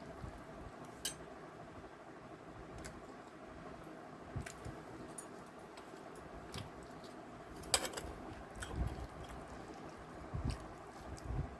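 A person eating rice with chicken curry: chewing and soft wet squishes with scattered sharp clicks, the loudest about eight seconds in, over a steady low hum.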